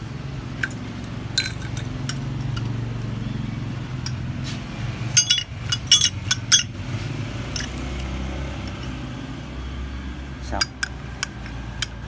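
Sharp metallic clinks of steel pliers against a steel Zippo lighter case on a tile floor, a quick cluster about five seconds in and a few more clicks near the end as the lighter is handled, over a steady low hum.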